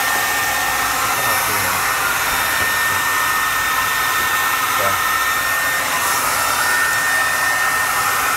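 Hand-held hair dryer running steadily, blowing hot air over wet countertop epoxy to move and level it; a steady rush of air with a thin steady whine.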